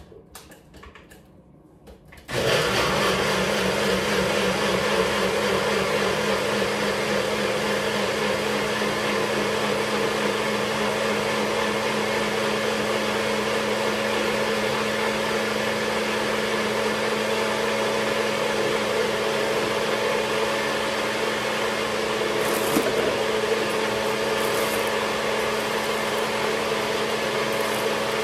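Countertop blender switched on about two seconds in and running steadily, blending pumpkin seeds, hemp hearts, citrus juice and water into a salad dressing.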